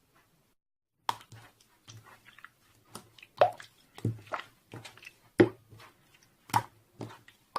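Close-up chewing and crunching: irregular wet clicks and crunches, several a second, starting about a second in.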